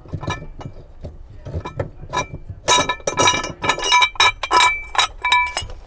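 Metal parts clinking and ringing, a few scattered knocks and then a quick run of clanks through the second half. This is the spare tire's metal hold-down and the nearby tool kit being handled as the spare comes out of its well.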